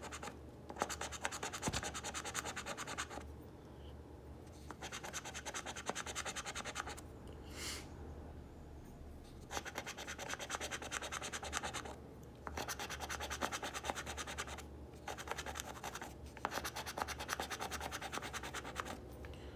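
A coin scratching the coating off a paper scratch-off lottery ticket in rapid strokes. It comes in several bursts of a couple of seconds each, with short pauses between.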